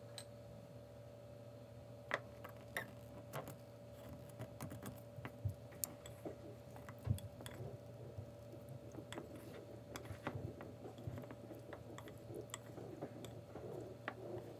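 Wooden chopsticks clicking and tapping against a small ceramic bowl while pulling apart a broth-soaked fried tofu pouch, with soft, wet crackling as the pouch tears open in the second half. A faint steady hum runs underneath.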